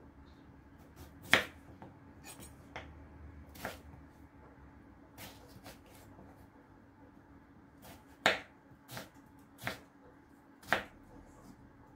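Kitchen knife cutting a peeled potato on a wooden cutting board: separate sharp knocks of the blade hitting the board, irregularly spaced, with a strong one about a second in and three or four more near the end.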